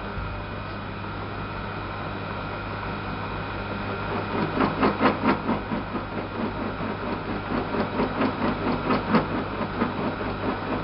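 Small Cosmos metal lathe running at low speed, taking a roughing cut on rusty steel bar stock. From about four seconds in, the cut comes and goes as a rhythmic scraping about three times a second over the steady hum of the machine. This is the tool biting on the hard rust layer of stock that is not yet round.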